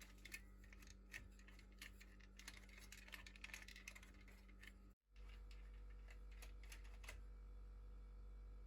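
Near silence: faint, irregular light clicks over a steady low hum, with a brief cut in the sound about five seconds in and a few more clicks after it.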